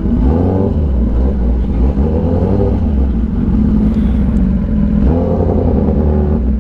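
Kawasaki Ninja ZX-10R's inline-four engine running at low revs as the bike rolls slowly, with the pitch shifting slightly a moment in and again about five seconds in.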